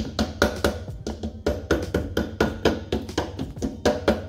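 Background music with a quick, steady percussive beat.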